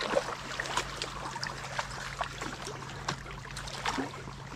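Water splashing and sloshing at the surface as a fish strikes repeatedly at a topwater lure being retrieved, in a run of short irregular splashes, the loudest near the start and about three and four seconds in.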